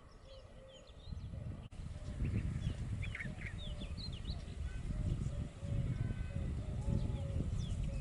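Birds calling in a field: many short, high chirps and whistles from small birds, over a row of low, evenly repeated calls. From about a second in, a louder low rumble of wind on the microphone sits under the birdsong.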